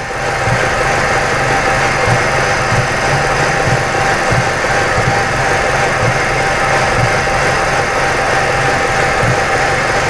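2006 Ford Escape's 2.3-litre four-cylinder engine idling with an uneven, stumbling low pulse: it is misfiring on all four cylinders, as crank-velocity analysis confirms.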